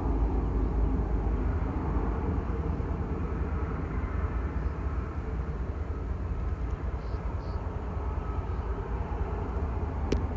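Steady low rumble of a freight train, with a single sharp click near the end.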